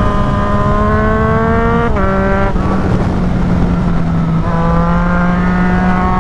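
Yamaha MT-09's three-cylinder engine through a full aftermarket exhaust, pulling hard with its pitch climbing, then a sudden drop in pitch about two seconds in as it shifts up on the quickshifter. It eases for a moment, then climbs in pitch again from about four and a half seconds in, with wind rushing over the helmet camera.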